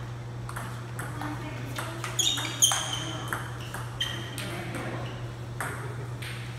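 Table tennis ball clicking back and forth off the bats and table during a rally, a series of sharp hits, some with a short high ping; the loudest come about two seconds in. A steady low hum runs underneath.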